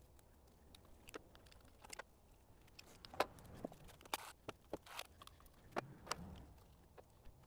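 Footsteps on a concrete garage floor with scattered clicks and clinks of tools being handled, the sharpest knock about three seconds in.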